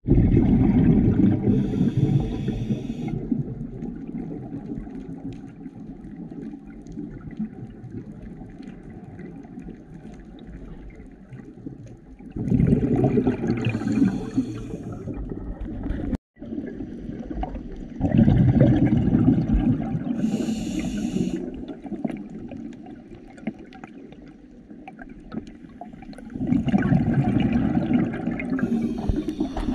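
Scuba diver's regulator breathing underwater: four long, loud bubbling exhalations spaced several seconds apart, each with a short higher hiss, and a softer water rush between them. The sound cuts out for a moment about halfway.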